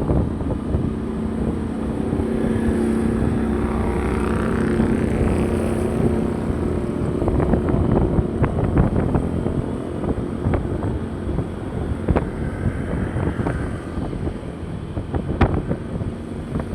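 A motor vehicle's engine running steadily, with wind noise on the microphone and scattered knocks and clicks in the second half.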